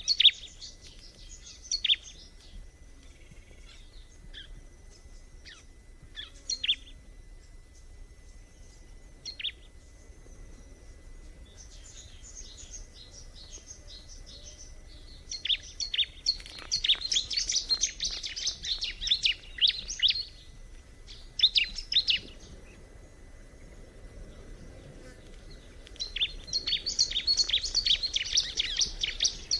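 Bar-winged prinia (ciblek) singing: bursts of fast, high chirping, short phrases at first, then longer runs of song about halfway through and again near the end.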